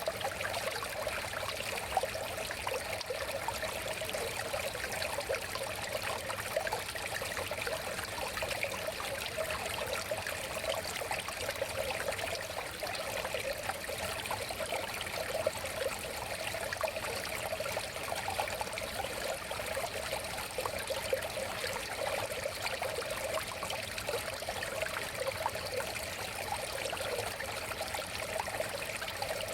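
River water flowing and babbling over stones, a steady rush with a fine continuous burble.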